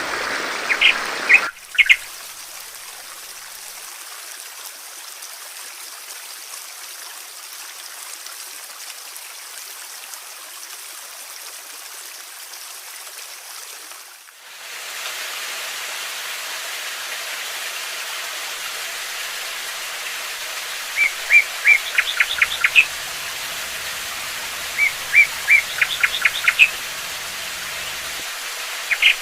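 Steady hiss of rushing water with songbirds chirping. A few chirps come near the start; the water sound changes abruptly soon after and again about halfway. Later come two quick runs of rapid repeated chirps a few seconds apart.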